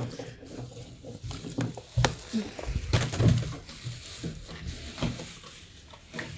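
Onions and potatoes being handled and set into a plastic basket, with a plastic bag rustling. There are a few sharp knocks and dull thumps; the sharpest knock comes about two seconds in, and dull thumps follow around a second later.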